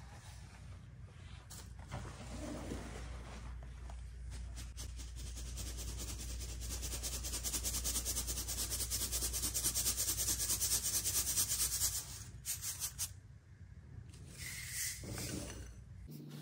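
Fine dry baking soda falling in a stream onto a powder heap: a soft grainy hiss that builds up and stops suddenly about twelve seconds in. A few softer scrapes and rustles follow near the end.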